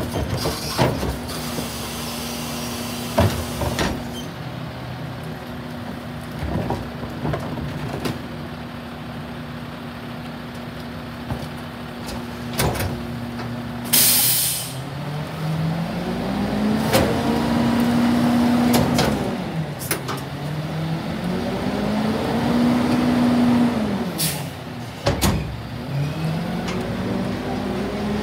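Rear-loader garbage truck's diesel engine idling steadily, with scattered bangs and clanks as carts are tipped and cardboard is thrown into the hopper. About halfway through comes a short sharp burst of air hiss. The engine then revs up, holds and drops twice as the packer blade cycles to compact the load, with another hiss and bang and the engine rising again near the end.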